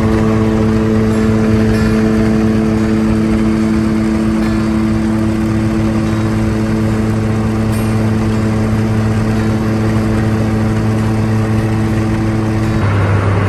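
Floatplane's engine and propeller running at a steady pitch, heard from inside the cabin while the plane moves across the water. Shortly before the end the higher tones drop out, leaving a lower drone.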